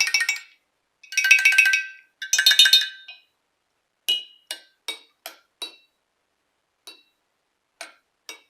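Glass jars holding different levels of water struck with a stick, ringing at different pitches like a water xylophone. First come quick runs of strikes that ring together, then about halfway five separate clinks in quick succession, then a few single strikes near the end.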